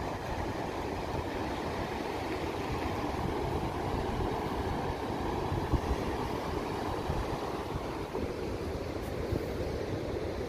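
Wind buffeting the microphone in an irregular low rumble, over the steady noise of heavy surf breaking on a sandy beach.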